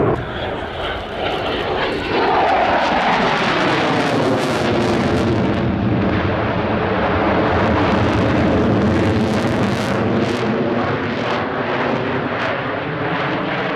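Belgian F-16AM Fighting Falcon's Pratt & Whitney F100 turbofan running loud during a display, a steady jet roar with a whining tone that falls in pitch from about two seconds in as the jet sweeps past.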